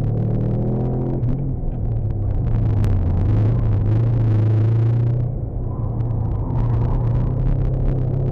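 Subaru Legacy Turbo's turbocharged flat-four engine pulling under load, heard from inside the cabin. The engine note dips briefly about five seconds in, then picks up again.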